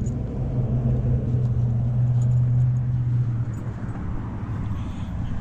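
Car running, a steady low engine and road hum that drops off about three and a half seconds in.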